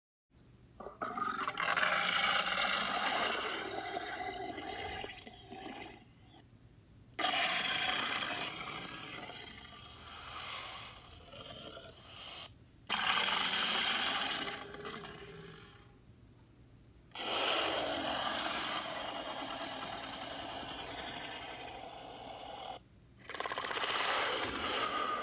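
Dinosaur roar sound effects: five long, harsh roars in a row, each starting suddenly and fading away, with short pauses between them.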